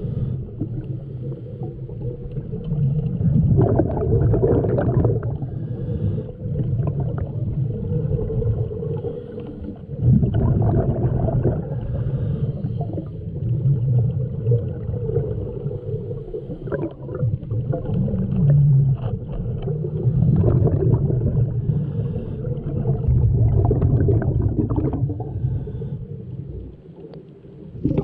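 Underwater sound of a diver breathing through a regulator: exhaled bubbles gurgle and rumble in swells every few seconds over a steady low hum.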